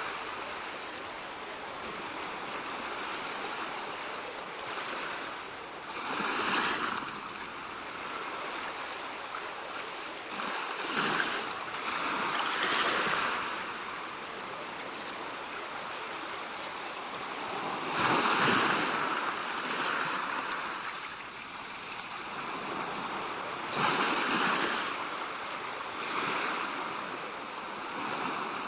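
Ocean surf: a steady wash of water, with waves swelling and breaking about every five or six seconds.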